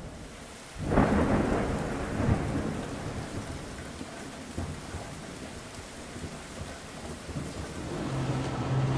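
A thunderclap about a second in: a sudden crackling crack that rolls on into a long, slowly fading rumble, over a steady hiss.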